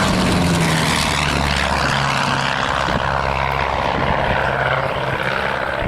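Piper PA-30 Twin Comanche's twin piston engines and propellers running steadily: a loud, continuous roar with a low hum that drops slightly in pitch about a second in.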